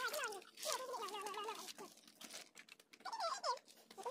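Short, high-pitched animal calls, several in quick succession, each sliding down in pitch, with light clicks and patter between them.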